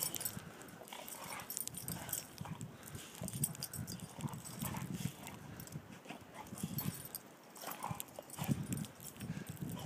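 Dogs snuffling and rooting with their noses in the snow, a few short irregular bursts a second.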